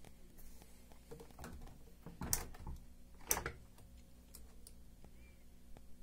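Plastic clicks and knocks from a Samsung addWash washing machine's small add-garment door being opened, the two loudest about two and three seconds in.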